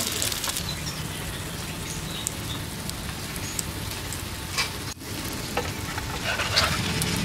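Corn fritter batter sizzling in hot oil in a nonstick frying pan, a steady crackle with scattered small pops. The sound briefly drops out about five seconds in.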